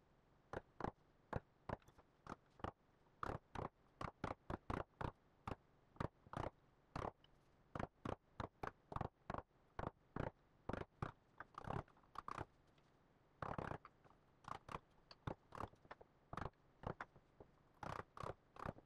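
Mallet striking a bench chisel to chop out a bow-tie inlay recess in a wooden slab: a long run of sharp taps, about two a second and unevenly spaced.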